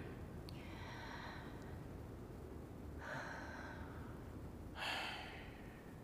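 A person's breathing: three soft breaths, the last and loudest near the end, over faint low room tone.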